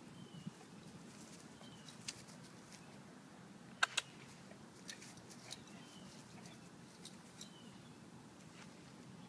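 A bird in the background repeating a short falling call every second or two, with a few sharp clicks, the loudest a pair about four seconds in.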